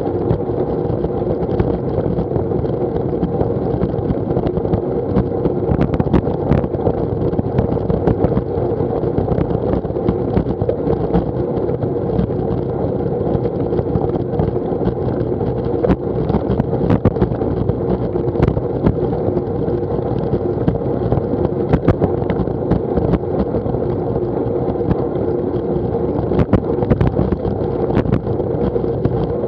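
Wind rushing over a handlebar-mounted action camera's microphone and tyre rumble from a bicycle riding along a tarmac path at about 11 to 15 mph. A steady hum runs underneath, with scattered sharp clicks and knocks.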